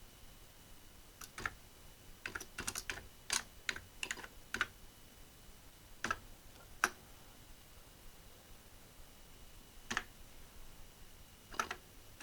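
Keys being typed on an Atari 65XE's keyboard: irregular clusters of sharp key clicks with pauses between, as the repaired keyboard membrane is tested key by key.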